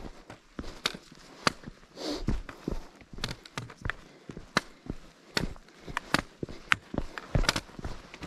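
A hiker's footsteps on a trail going downhill: sharp, irregular steps about two a second.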